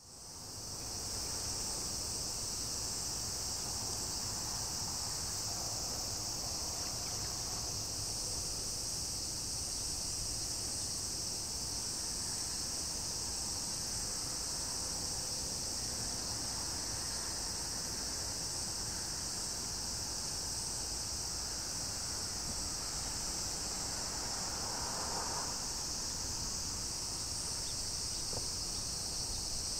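A steady, unbroken chorus of insects, high in pitch, over a faint low rumble.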